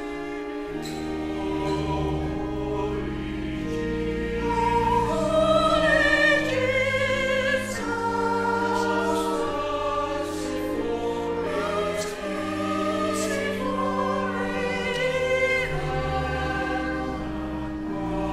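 Choir singing sacred music over sustained organ chords, the voices swelling to their loudest about six seconds in.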